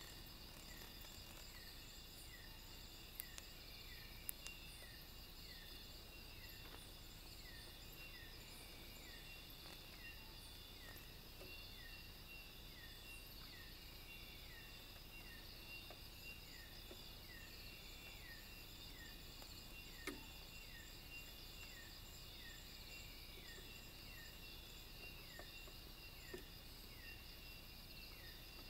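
Quiet night chorus of insects: steady high-pitched trilling, with a short falling call repeated about twice a second throughout and a few faint clicks.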